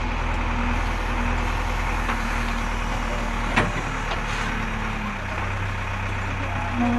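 JCB backhoe loader's diesel engine running steadily while the backhoe arm and bucket work, with a thin whine that comes and goes. A single knock about three and a half seconds in.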